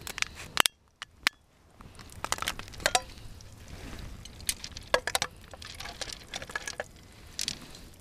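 Scattered clinks, knocks and scrapes of a frying pan and a camping gas canister being handled and set down on shingle pebbles, with a brief lull about a second in.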